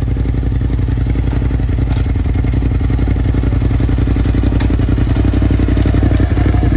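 Side-by-side UTV engine idling steadily.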